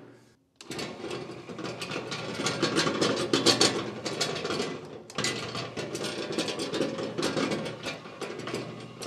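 Electric gear motor turning a snowblower chute through a 3D-printed pinion gear meshing with the chute's ring gear: a running motor with a rapid clatter of gear teeth. It runs in two stretches, with a brief stop about five seconds in.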